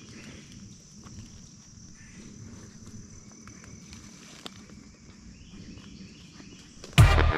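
Quiet woodland ambience with a steady high buzz of insects. In the last half second a sudden loud burst cuts in.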